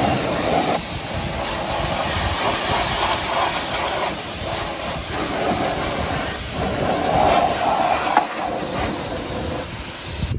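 Pressure washer jet spraying steadily, hissing and spattering as it rinses grime off a car's steel front crossmember and the wet concrete beneath.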